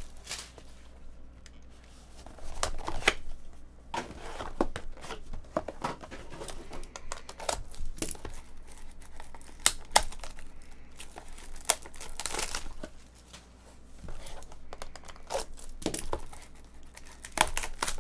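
Plastic shrink wrap crinkling and tearing as it is peeled off a sealed trading card box, in irregular crackles with brief lulls.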